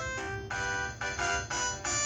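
Polyphonic ringtone melody played through the speaker of a Huawei ETS688 desk phone: a run of short electronic notes and chords.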